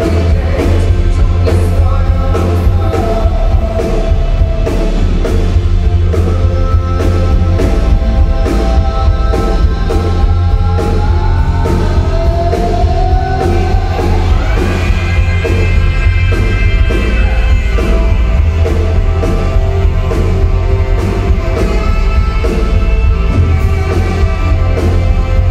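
Live rock music played by a band on stage, with singing over a heavy bass and a steady beat; a rising line climbs in the middle.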